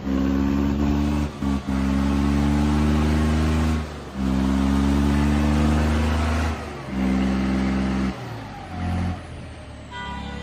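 John Deere 5210 tractor's three-cylinder diesel running hard at a steady pitch under full pulling load while its rear tyres spin on concrete. The note drops out briefly several times.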